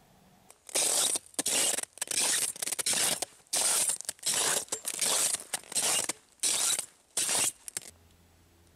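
Footsteps crunching through cold, dry snow at about minus 21 °C: a dozen or so steady strides, stopping about a second before the end.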